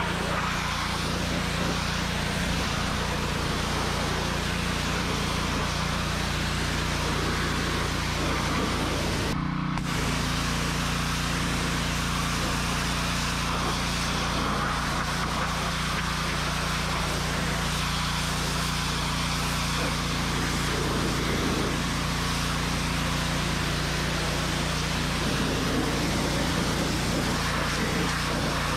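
Gas pressure washer running steadily: the Honda GX200 single-cylinder engine drones under the hiss of the water jet spraying a tractor tyre and wheel rim.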